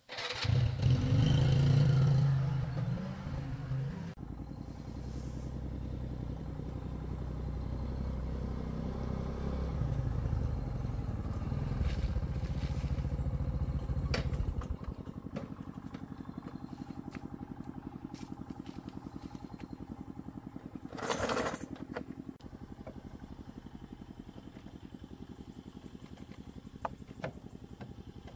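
A small motor scooter engine running, loudest in the first few seconds, then steady. About fourteen seconds in it drops to a quieter, steady putter. There is a short louder noise about twenty-one seconds in.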